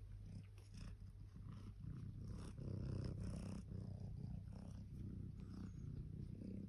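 Tabby-and-white domestic cat purring steadily, a low rumble, while it is stroked on the head and under the chin.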